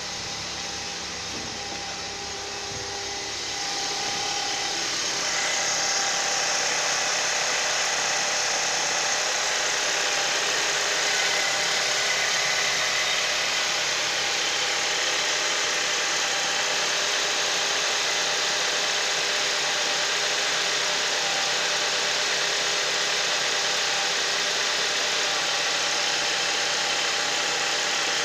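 Skoda Octavia 1.8 TSI turbocharged four-cylinder petrol engine idling steadily on a cold-start warm-up after standing overnight, with no knocking to be heard. It grows louder between about three and six seconds in and then runs evenly.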